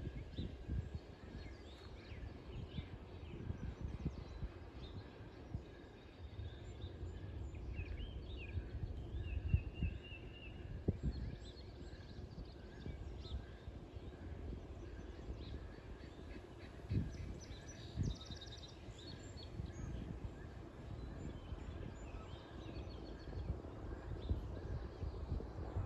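Birds chirping and trilling in short calls over a steady low rumble of outdoor background noise, with a few soft thumps.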